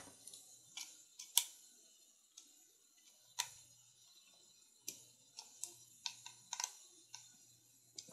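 A Ganzo D727M folding knife being handled: about a dozen sharp clicks, scattered unevenly, the strongest near one and a half seconds and three and a half seconds in.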